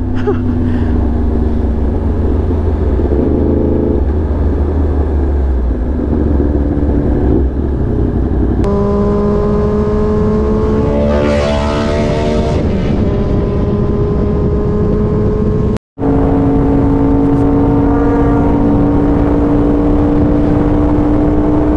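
Loud Yamaha R1 inline-four through an SC Project exhaust, running at steady revs while under way, with a few shifts in engine pitch and a rise and fall around the middle. The sound cuts out for a split second about two-thirds through.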